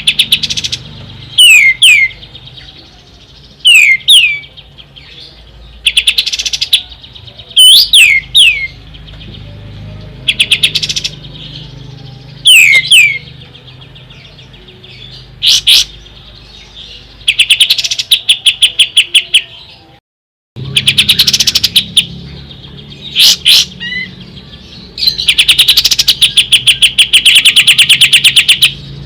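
Kapas tembak bulbul singing. Loud downward-sweeping whistles alternate with fast rattling trills, and the longest trill comes near the end.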